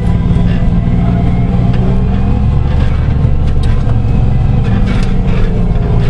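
Fendt 820 tractor engine running steadily, heard from inside the cab, with a few short knocks from the machinery.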